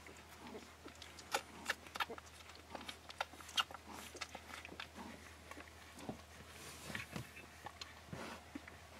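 Twelve-day-old Akita puppies nursing: irregular wet suckling and smacking clicks, densest in the first half, with faint low grunts between them.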